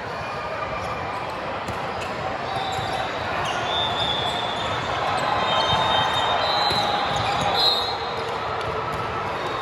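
Gym during a volleyball match: balls being hit and bouncing, short squeaks and a steady background of voices.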